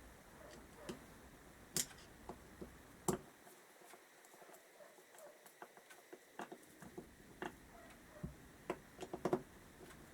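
Scattered light clicks and taps of small carburettor parts and tools being handled on a workbench, irregular, with a sharper click about two and three seconds in and a quick cluster near the end.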